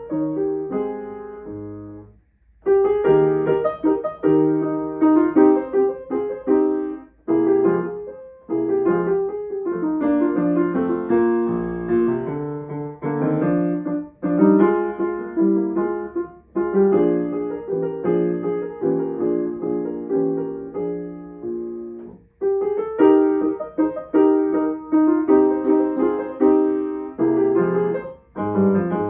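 Grand piano played solo: a piece in phrases of chords and melody, with short breaks between phrases.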